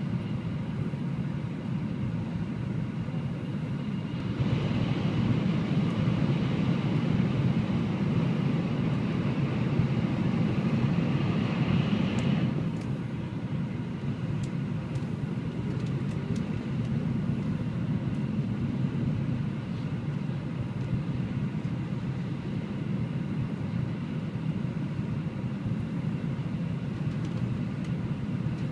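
Shinkansen bullet train running at about 290 km/h, heard inside the passenger cabin as a steady low rumble. About four seconds in it grows louder and gains a hiss, then drops back about twelve seconds in.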